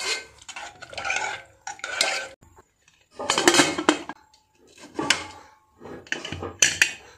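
Metal clanks and scrapes in an aluminium pressure cooker: a spoon stirring and scraping through khichdi, then the lid being closed and the whistle weight fitted on the vent. There are about seven separate bursts, the loudest a little past the middle.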